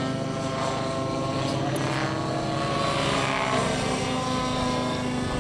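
Radio-controlled model aircraft flying overhead, its engine running steadily, with the pitch sweeping in the middle as it passes.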